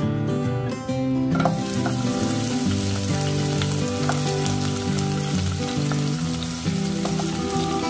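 Chopped red onion dropped into hot oil in a non-stick pot, sizzling steadily from about a second and a half in. Acoustic guitar background music plays under it.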